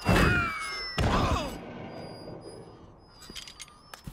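Cartoon impact sound effects: a loud thud with a falling whistle at the start, then a second thud about a second in that slowly dies away, as a body is slammed into the dirt.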